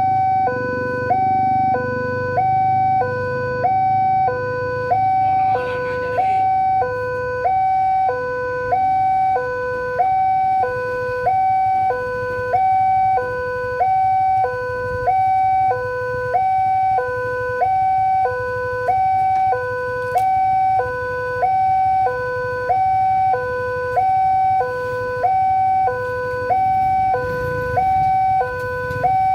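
Railway level-crossing warning alarm sounding a steady electronic two-tone chime, alternating low and high about every two-thirds of a second. It signals that the crossing is closed for an approaching train.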